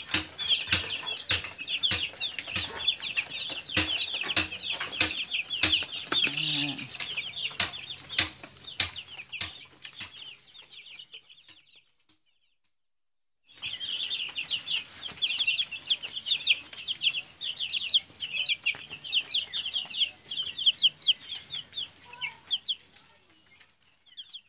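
A flock of young broiler chicks peeping all the time in short, falling chirps, with sharp ticks through the first half. The sound fades out about halfway, stops for a moment, then the peeping starts again.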